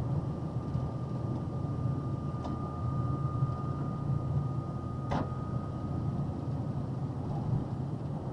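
Steady low drone of a box truck's engine and road noise heard inside the cab while driving, with a faint steady whine that stops near the end and two brief clicks.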